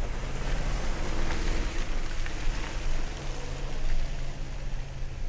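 Range Rover accelerating hard up a muddy field: a steady engine drone under a dense, rain-like patter and hiss of mud and grass thrown up by the tyres.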